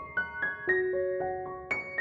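Background piano music: a gentle melody of single struck notes, a few a second, each ringing on as it fades.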